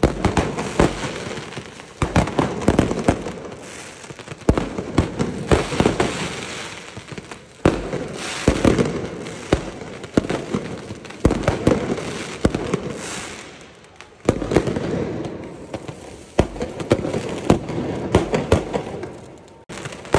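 Mortar fireworks being fired in rapid volleys: many sharp bangs and crackles in quick succession, coming again and again with only short lulls between them.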